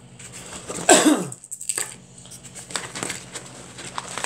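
Handling noise: scattered small knocks and clicks, with one short grunt about a second in whose pitch falls steeply, over a steady low hum.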